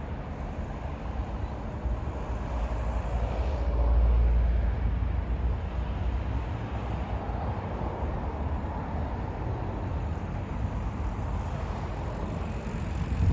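Wind buffeting the microphone as a low steady rumble, with a stronger gust about four seconds in.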